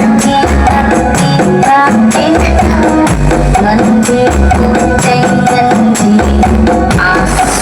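Very loud music blaring from a 'sound horeg' parade sound system, with heavy, repeated bass hits under busy melody and percussion.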